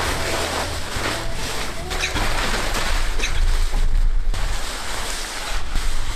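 Nylon tent fabric rustling and swishing as it is lifted, shaken and bundled up, in an irregular rush of noise that swells and eases.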